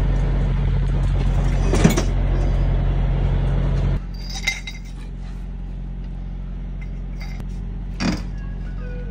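Metal clanks of steel tire tools working on a semi-trailer wheel's lug nuts: a sharp clank about two seconds in, a lighter clink a little after the midpoint and another clank near the end, over the steady hum of an idling engine that drops quieter about halfway.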